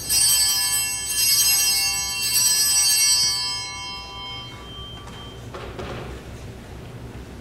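Altar bell rung three times in quick succession, its bright ringing dying away over a few seconds, as rung at the elevation during the consecration. A brief rustle follows near the end.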